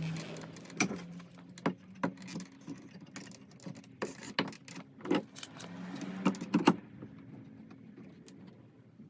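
Speed clamps being fitted and squeezed tight to hold a plank against the underside of a wooden surface: a run of clicks, knocks and rattles, thickest about four to seven seconds in, over a low steady hum.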